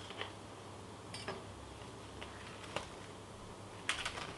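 Plastic cling film over a mushroom punnet being slit with a kitchen knife and peeled back: a few scattered light ticks and crinkles, with a small cluster near the end.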